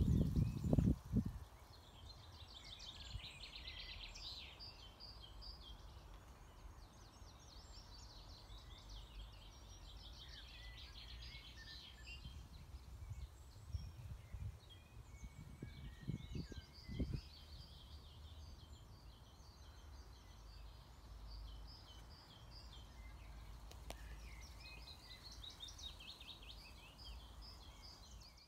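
Several songbirds singing, with repeated trills and warbling phrases, over a steady low rumble. Brief low thumps come right at the start and again about halfway through.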